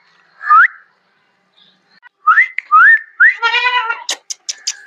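A man whistling to call his goat kids: four short, loud whistles, each sliding upward. Just past the middle a goat kid answers with a bleat, and near the end comes a quick run of sharp clicks.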